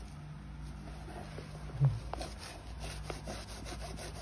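A cleaning wipe rubbed quickly back and forth along a sneaker's rubber midsole, a scratchy scrubbing in repeated short strokes as the yellowing is wiped off. A brief low thump about two seconds in.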